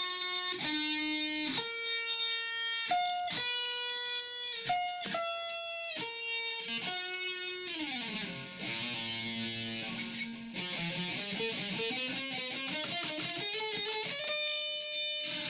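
Electric guitar playing a single-note lead line: a series of held notes, a slide down in pitch about eight seconds in, then a quicker run of notes ending on a long held note.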